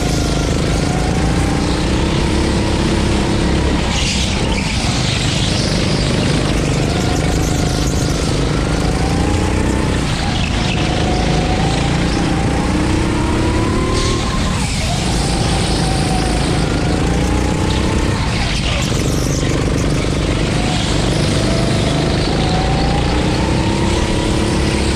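A 9-horsepower rental go-kart engine running hard through laps. Its pitch climbs along each straight, then drops sharply as the driver lifts for a corner, about every four to five seconds. A constant rushing noise runs underneath.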